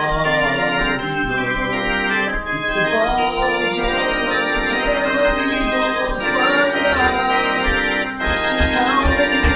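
Organ-toned keyboard music in C minor: sustained chords held for several seconds, with a wavering melody line over them.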